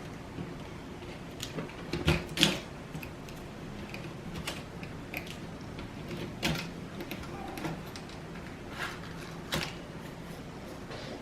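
Scattered clicks and knocks of plastic laptop parts being handled while the keyboard is taken apart, the loudest pair about two seconds in.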